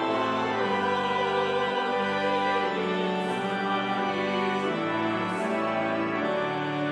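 Organ playing slow, held chords that change every second or so.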